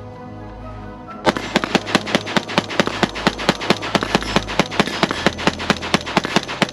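Rapid semi-automatic fire from a Springfield Armory Hellion 5.56 rifle: a long string of about thirty shots at around five a second, starting about a second in.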